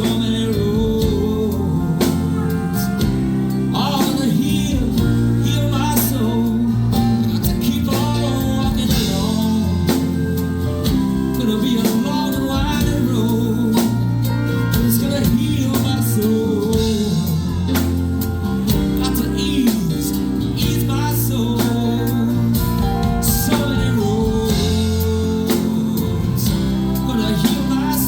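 Live rock band playing a passage without sung words, with guitar over bass and drums.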